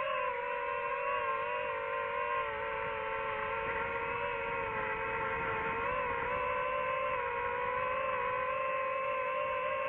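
DJI FPV drone's motors and propellers running with a steady whining hum, the pitch wavering slightly as the throttle shifts.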